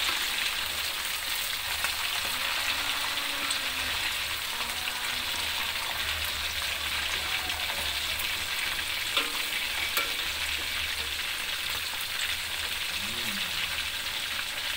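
Chicken pieces deep-frying in hot oil in an aluminium wok: a steady bubbling sizzle. A metal spatula turns the pieces and knocks against the wok twice, about nine and ten seconds in.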